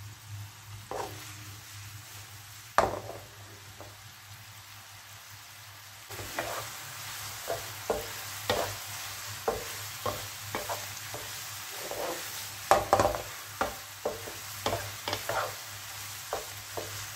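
Marinated chicken pieces sizzling in ghee in a nonstick frying pan. A single sharp knock comes near three seconds in, and from about six seconds a wooden spatula stirs the pieces, with frequent short scrapes and taps against the pan.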